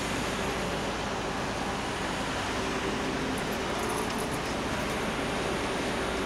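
Steady city street din: a continuous wash of traffic noise with a faint steady hum under it.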